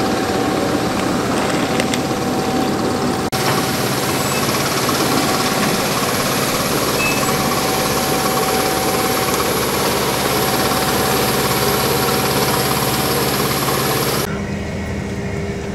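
Steady jet turbine noise on an airport ramp beside a regional airliner: an even rushing sound with a steady high whine. It breaks off for an instant about three seconds in and grows quieter near the end.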